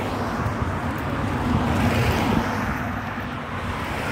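Wind buffeting the microphone: a steady, uneven low rumble of outdoor noise.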